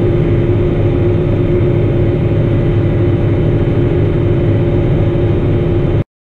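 Claas Axion 850 tractor's six-cylinder diesel engine running steadily under load while pulling a seed drill, heard from inside the cab as a deep drone with a steady whine over it. The sound cuts off suddenly near the end.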